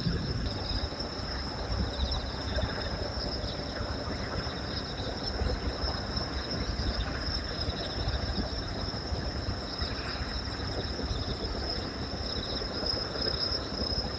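Night insects chirping steadily in a high, pulsing trill over a low, uneven rumble.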